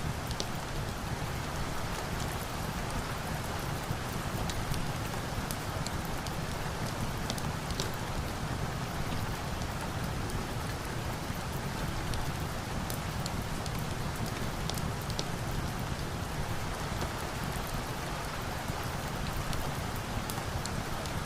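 Steady, even rain falling, with scattered short sharp ticks and pops over it.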